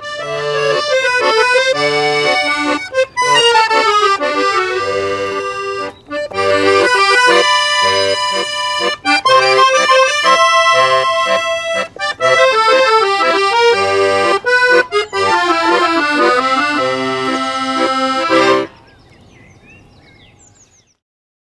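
Two piano accordions playing a musette waltz in duet, with melody and chords over bass notes on the beat. The piece ends on a held final chord a few seconds before the end, and only faint sound follows.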